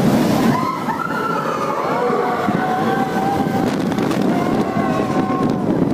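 Expedition Everest roller coaster train rumbling and rattling along its track through a dark tunnel, with riders' long drawn-out screams over it.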